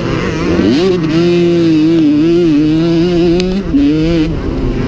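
1985 Honda CR125's two-stroke single-cylinder engine held near full throttle. It revs up about half a second in, holds high and steady for about three seconds, drops briefly near four seconds, then climbs again.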